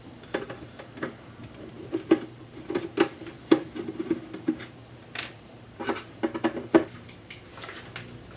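Irregular sharp clicks and knocks of hands and tools working on the case of a Quick 861D+ hot air rework station as it is opened up, over a faint steady hum.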